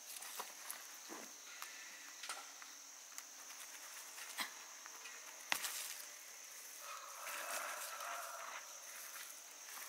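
Steady high-pitched insect trilling, with soft rustles and short snaps of leafy plant stems handled and picked by gloved hands; the sharpest snap comes about five and a half seconds in.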